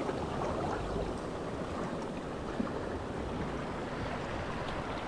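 Shallow sea water washing over a rocky shore: a steady wash of small waves and flowing water.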